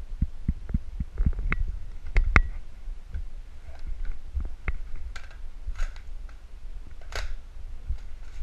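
Muffled low thumps of footsteps and knocks carried through a moving action camera, a few every second, with a couple of sharp clicks about two seconds in and several short rustling swishes in the second half.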